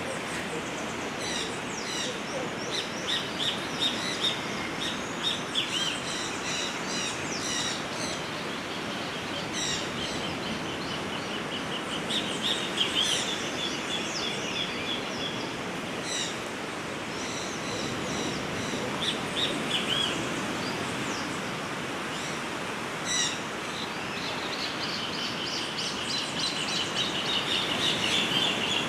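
Small birds chirping and calling repeatedly, with two longer rapid trills near the middle and near the end, over a steady rushing background wash.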